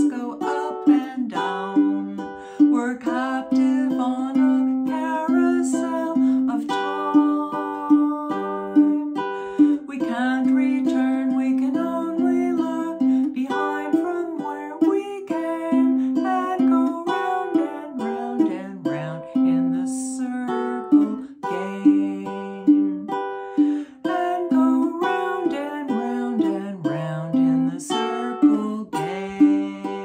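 Ukulele strummed in a steady rhythm, with a woman singing a folk song along with it.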